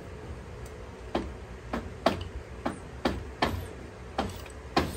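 Sharp metallic clicks, about eight at irregular intervals, from a Harley-Davidson Twin Cam 96 engine being turned over by hand with new Screaming Eagle cams fitted, checking that nothing hits.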